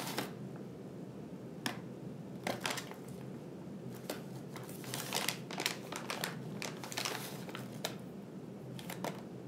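Room tone with a steady low hum, broken by scattered soft clicks and rustles a few times over the pause.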